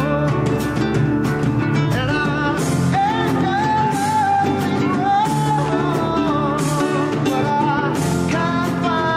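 A song: a lead voice singing a wavering melody over instrumental backing with a steady beat.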